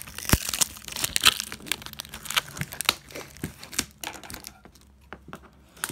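Clear packing tape and plastic wrap being pulled and torn off a cardboard shoebox, crinkling and crackling with sharp snaps. It quiets down about four and a half seconds in.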